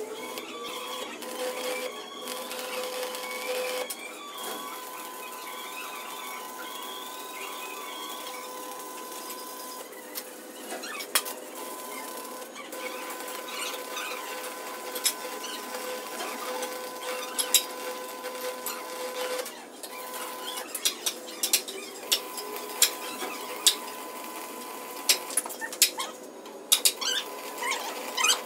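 A machine running steadily with a constant whine, with sharp clicks and knocks that come more often in the second half.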